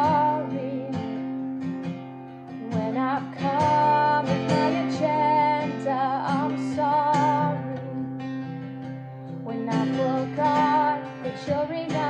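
Acoustic guitar strummed under a woman singing a slow worship song, her voice holding long notes with vibrato.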